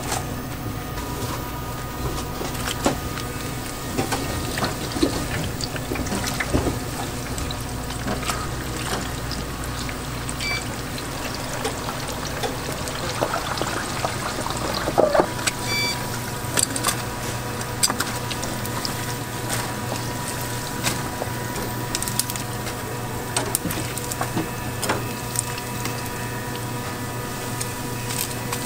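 Steady running or pouring liquid, with many small clicks and clatters scattered through it.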